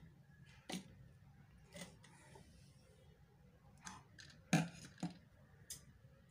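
Cloth being handled at a stopped sewing machine: soft fabric rustles and a few scattered light clicks and taps, the sharpest about four and a half seconds in.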